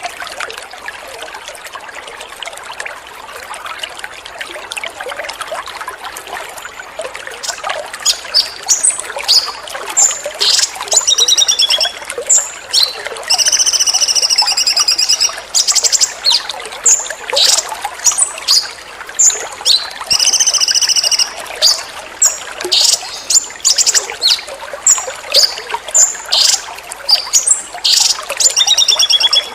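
Water trickling steadily. About seven seconds in, a songbird starts a rapid, loud song of high sharp chirps and notes, broken twice by longer buzzy trills.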